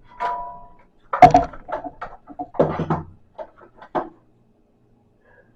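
Plastic clacks and knocks of Wii remotes and nunchucks being handled and fitted into a plastic controller stand. There is a brief squeak at the start, and the loudest knock comes about a second in. The clatter stops after about four seconds.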